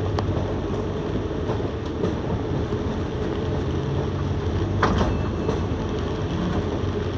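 Interior noise of a moving double-decker bus: a steady low drone of the drivetrain and road noise with light rattles, and one short sharp click about five seconds in.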